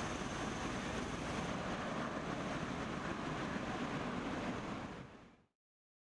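Steady rushing noise of aircraft running on an airfield, with a faint high whine over it; it fades out about five seconds in.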